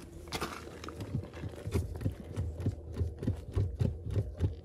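Hand pumping during brake bleeding: a steady rhythm of dull thumps, each with a short click, about three strokes a second.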